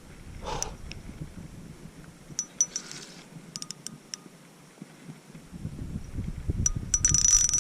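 Fishing reel drag ticking and buzzing in short runs as a big bass pulls line, loudest near the end. A low rumble joins in past the halfway point.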